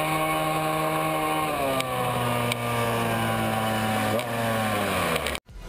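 Racing scooter engine heard onboard, holding a steady high note, then dropping in pitch about one and a half seconds in as the throttle eases. The note sags further, falls again and cuts off abruptly near the end.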